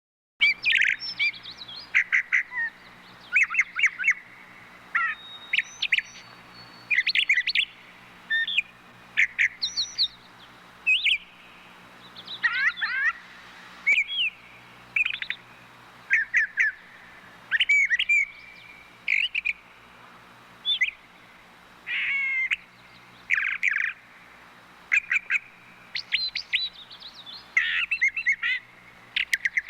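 Thrushes singing: short, varied whistled phrases, one after another with brief pauses, a new phrase every second or two.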